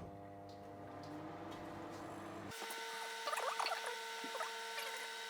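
Microwave oven starting with a click and then running with a steady electrical hum. The hum's tone changes abruptly about halfway through.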